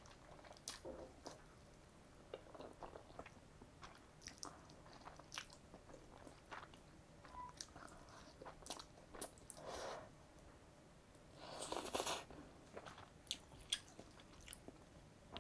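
Quiet close-up eating sounds: a person slurping and chewing jjapaghetti black-bean-sauce noodles, with many small wet mouth clicks and smacks, and a longer, louder breathy rush about twelve seconds in.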